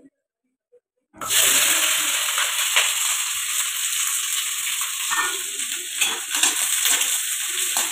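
Chopped onions and green chillies frying in a kadhai on a gas stove, starting to sizzle suddenly about a second in and then sizzling steadily, with a few light taps.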